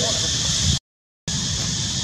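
Outdoor tree-canopy ambience: a steady high hiss over a rough low rumble, cut to dead silence for about half a second near the middle.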